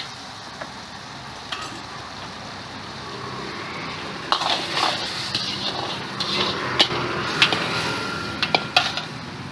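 Long-handled ladle stirring veg manchurian gravy in a large wok, the sauce sizzling steadily, with sharp metal scrapes and clinks of the ladle against the wok, coming more often in the second half.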